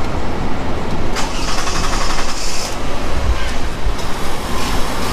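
Toyota Alphard engine running at idle just after starting, circulating freshly added power steering fluid through the pump as part of a flush. A high hiss joins it for about a second and a half, a little over a second in.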